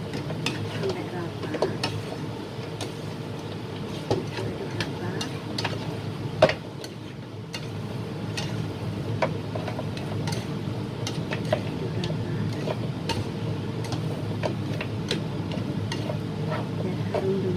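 Spatula stirring chunks of goat meat in a large metal wok, knocking and scraping on the pan in irregular clicks, the loudest about six and a half seconds in, with a light sizzle from the pan over a steady low hum.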